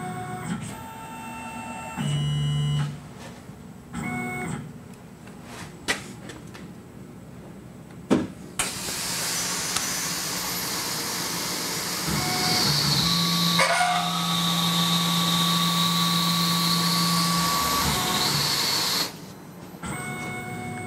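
CNC mill drilling holes in an aluminum block: short spells of spindle whine and machine moves, then from about eight seconds in a loud steady hiss of air and coolant from the spray nozzles, with a low hum and the spindle tone under it, cutting off about two seconds before the end.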